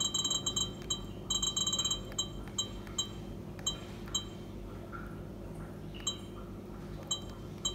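Sony HDR-CX405 camcorder's electronic key beeps as its control button is pressed to step the clock's minutes. Two quick runs of rapid beeps come in the first two seconds, then single beeps that grow sparser toward the end.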